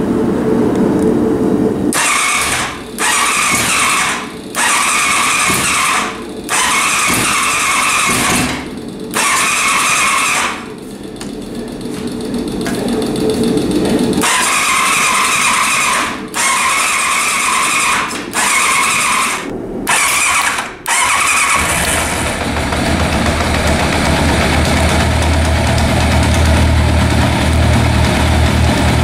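Yamaha motorcycle's electric starter cranking the engine in a string of short bursts with brief pauses between them, until about twenty seconds in the engine catches and settles into a steady low idle. This is the engine being started after carburettor work.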